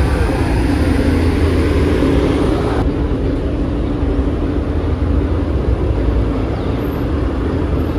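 Deep, steady engine rumble of a big lifted pickup truck rolling slowly past.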